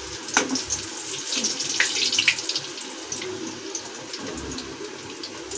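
Kababs deep-frying in hot oil in an iron kadhai: a steady sizzle with crackles. There are a few sharp clicks of the skimmer against the pan in the first two and a half seconds, as the kababs are lifted out.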